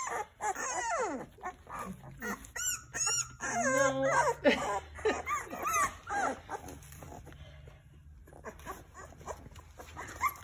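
Young bottle-fed puppies whimpering and yelping in a string of short, high cries that bend up and down in pitch, growing sparse and quieter over the last few seconds.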